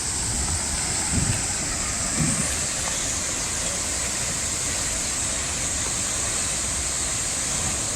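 Steady rushing of a powerful waterfall close by.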